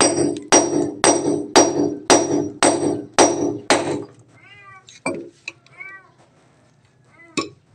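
Claw hammer striking a steel rod being driven into cement at a wall's base, about two ringing metallic blows a second, eight blows in all, stopping about four seconds in. A trapped kitten then meows several times.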